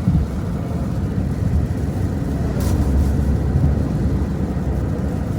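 Inside a moving car: steady low road and engine rumble while driving.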